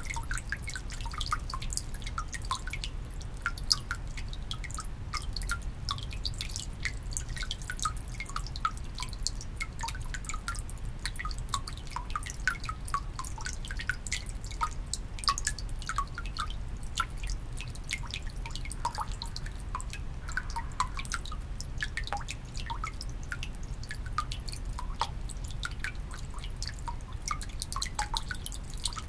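Water from a Shinto shrine's temizuya purification basin falling into the stone basin: a fast, irregular stream of drips and small plinks, over a steady low rumble.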